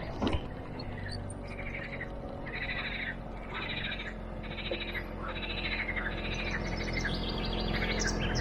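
An animal calling over and over in short, rasping notes, about one and a half a second, starting about two seconds in. A low steady hum runs underneath and grows louder toward the end.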